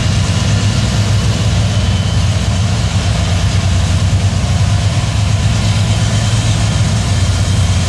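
EMD SD70ACe diesel-electric locomotive, its 16-cylinder two-stroke engine running under load as it leads a loaded coal train past at close range. It is a steady, even low drone with the broad noise of the moving train over it.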